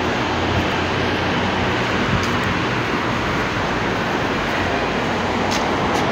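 Steady, loud rumble of urban traffic, echoing under a concrete overpass.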